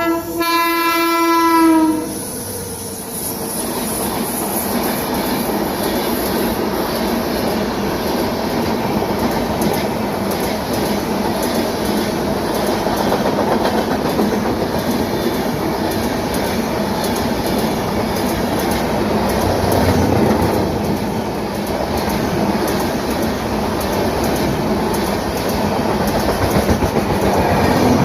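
WAP-7 electric locomotive's horn sounding, its pitch dropping as the locomotive goes by and cutting off about two seconds in. Then a long passenger train rolls past with a steady loud rumble of wheels on rails and a faint clatter over the rail joints.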